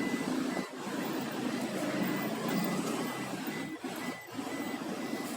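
A high electronic beep repeating evenly several times a second, over a low steady mechanical hum.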